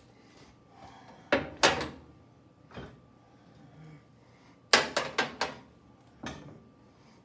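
Metal gas-stove burner grates set down on an enamel stovetop: sharp clanks, a pair about a second and a half in, a lighter one near three seconds, a quick run of four or five near five seconds, and one more after six.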